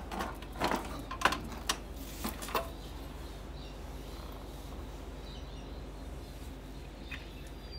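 Several knocks and metallic clinks in the first two or three seconds as the lawn edger is rolled onto its side on a concrete floor and small metal parts are handled. After that there is only a low steady hum, with a faint bird chirp near the end.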